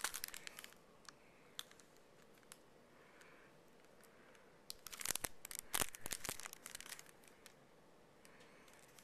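Packaging and a CD case being handled: scattered clicks and crinkles, a few at the start, then a busier stretch about five to six and a half seconds in.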